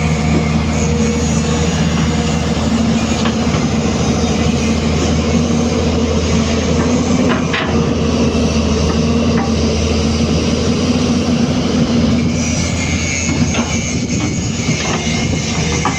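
Hyundai 215 hydraulic excavator's diesel engine running steadily under load, with a few sharp metallic knocks from the working machine.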